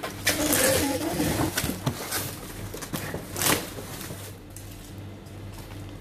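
Packing tape pulled off a handheld tape-gun dispenser and pressed across a polystyrene box: a longer tearing run of tape near the start and a short, sharper one about three and a half seconds in.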